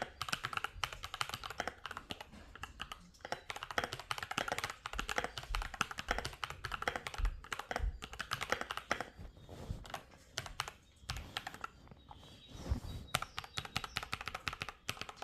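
Typing on an Akko 3098 mechanical keyboard: a fast, continuous run of key clicks, with a couple of brief pauses.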